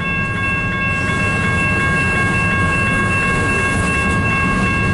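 Double-stack freight train rolling slowly past, a dense low rumble with several steady high-pitched tones held above it.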